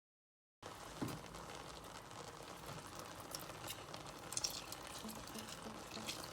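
A pot of palm oil fish stew simmering on a gas hob, bubbling with a steady hiss and scattered pops and clicks. It cuts in suddenly after a brief moment of dead silence.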